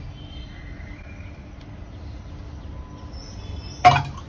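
A small steel bowl is set down with a single sharp metallic clink near the end, after a stretch of faint, even background noise.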